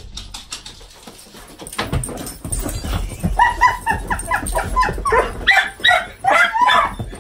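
Pet dogs whining and yipping in excited greeting as they jump on their owner, a rapid string of short high calls starting about three seconds in, over scuffling on the sofa.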